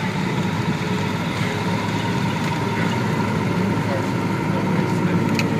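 Piper Lance's six-cylinder Lycoming piston engine and propeller running steadily with an even drone.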